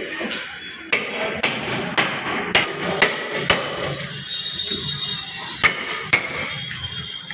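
Repeated sharp metallic strikes like hammer blows, about two a second, each ringing briefly, with a pause of about a second and a half midway.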